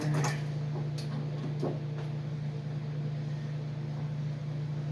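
Steady low mechanical hum in the background, with a few faint clicks and knocks from a lag bolt being set by hand.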